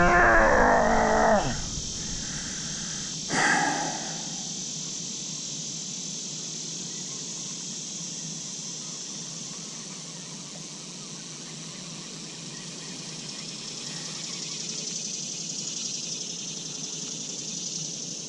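A steady, high-pitched chorus of insects, with a short louder noise about three seconds in.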